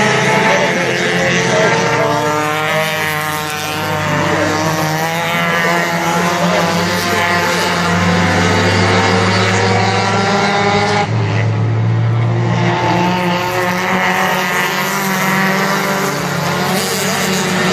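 A pack of mini stock race cars lapping an oval track. Several engines rev up and down over one another, loudest about midway as cars pass on the near straight.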